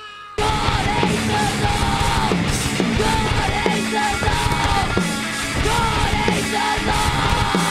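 Thrash metal band playing: distorted electric guitars and drums kick in abruptly about half a second in, then a fast, repeating riff.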